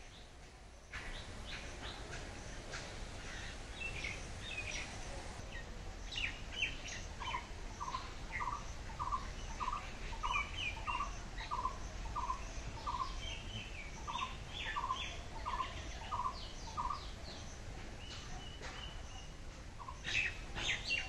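Birds chirping in the background. One bird repeats a short note a little over twice a second for about ten seconds, with a brief pause partway through.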